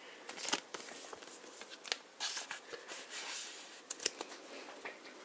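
Magic: The Gathering cards being handled and sorted, with papery rustling and light flicking clicks of cards against one another.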